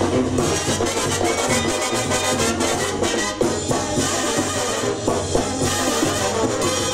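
Brass band music with drums and a steady beat.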